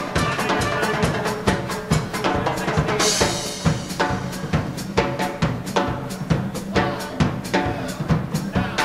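Live dance band playing an up-tempo number, with the drum kit (bass drum, snare and rimshots) prominent over sustained horn and ensemble lines in a steady rhythm.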